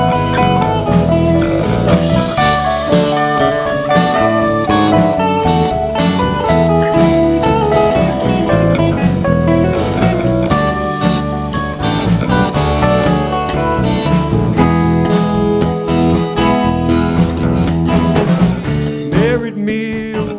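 Live band playing a blues-rock song, a lead guitar soloing over bass and drums. Near the end the guitar bends a few notes.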